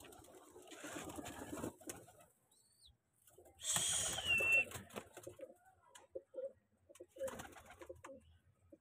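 Pigeons in a loft cooing in short low pulses, several in a row over the second half. About four seconds in, a brief loud flurry of wing flaps with a short falling squeak.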